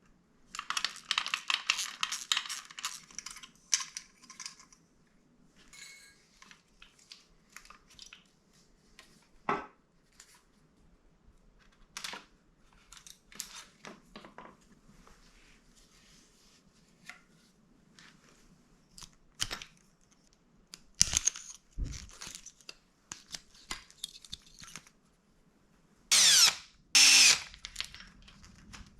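Hand-tool and parts-handling sounds from a dirt bike teardown. A run of fast clicking lasts for the first few seconds, followed by scattered sharp clicks and knocks of metal parts, a clank a little past the middle, and two loud scraping bursts near the end.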